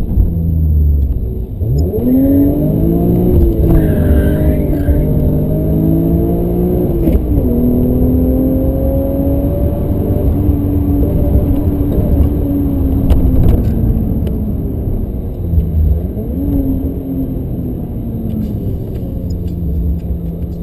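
BMW M5 engine heard from inside the cabin, accelerating hard from about two seconds in with its pitch climbing, dropping on an upshift about seven seconds in, then holding steady. It eases off around fourteen seconds and gives a short rev again near sixteen seconds, over constant road rumble.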